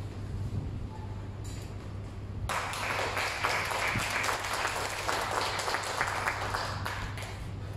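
Audience applauding. The applause starts suddenly about two and a half seconds in and fades near the end, over a steady low hum.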